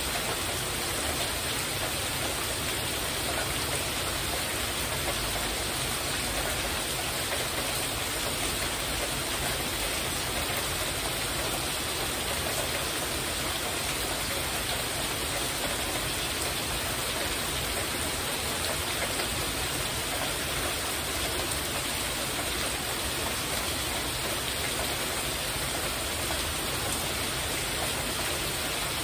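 Heavy rain falling on a porch roof: a steady, even hiss with no breaks.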